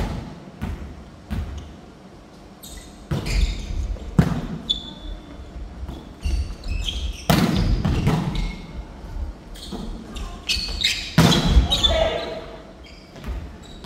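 Indoor volleyball rally: the ball slapped and passed several times, each hit a sharp smack that echoes around the gymnasium, the strongest a few seconds apart. Short high squeaks and players' calls come in between the hits.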